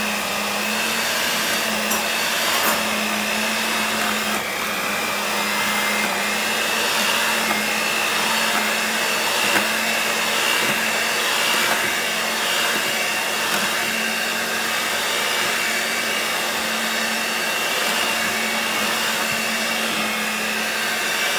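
Hamilton Beach electric hand mixer running steadily, its beaters mashing cooked potato chunks in a stainless steel pot: a constant motor hum with a higher whine above it.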